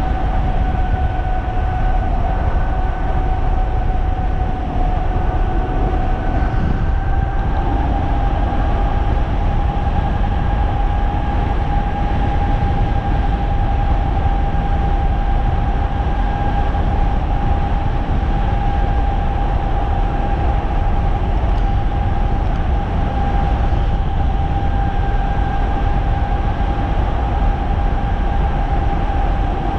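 A 3,000-watt electric bike's motor whining steadily at cruising speed. The pitch rises a little about seven seconds in and then holds, over a steady low rumble of wind and road noise.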